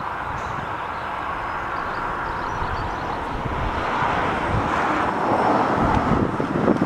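DJI Phantom quadcopter's propellers buzzing overhead, growing louder in the second half as it comes closer, with wind buffeting the microphone.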